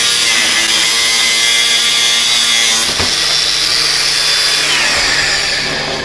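DeWalt DCG405F cordless angle grinder cutting through 3 mm galvanised steel plate, its disc grinding against the metal with a steady high-pitched whine. About five seconds in, the whine drops in pitch as the cut finishes.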